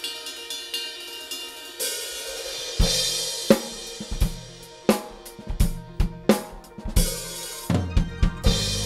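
Acoustic drum kit played along with a backing track. The backing track's sustained tones open with light ticks, then a cymbal swell comes in about two seconds in, and from about three seconds bass drum, snare and cymbal hits drive the groove.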